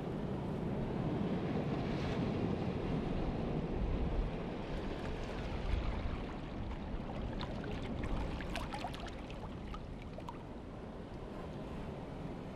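Surf washing up and foaming on a sandy beach, with wind buffeting the microphone. A few faint sharp ticks come through around the middle.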